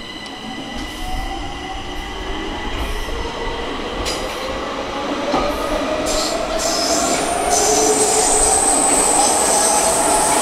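Stockholm metro train getting under way, its electric motor whine rising steadily in pitch and getting louder, with a high wheel squeal in the last few seconds.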